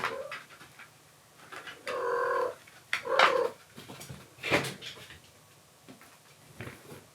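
Kittens meowing, two short calls about two and three seconds in, with a few sharp knocks scattered through.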